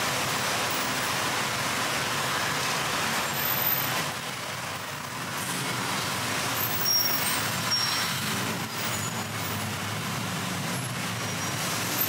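Busy city road traffic: a steady wash of engines and tyres, with a few brief high-pitched squeaks in the middle.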